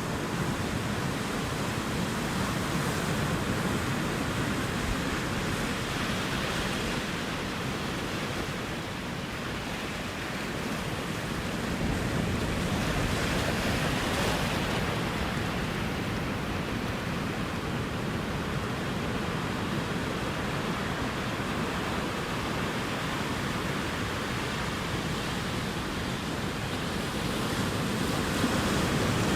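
Ocean surf washing ashore as a steady rush of noise, swelling and easing slowly as waves come in, louder around the middle and again near the end.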